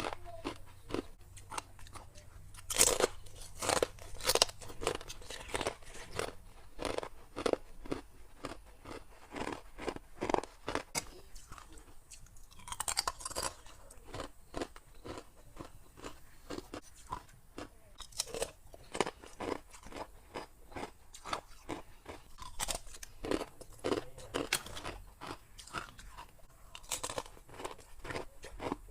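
Close-up chewing of hard, clear ice from a humidifier ice tray: a quick, irregular run of loud, sharp crunches as the ice is bitten and ground between the teeth.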